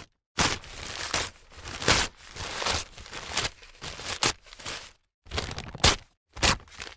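Newspaper handled in a series of separate takes: its sheets rustle and crinkle as they are shaken, turned and folded, with short dead-silent gaps between takes. Near the end comes one sharper, crisp snap of the paper.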